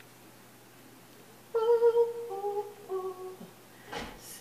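A singer humming vocal warm-up notes in a small room: about a second and a half in, a held note, then a few shorter notes stepping down in pitch. A short burst of noise near the end.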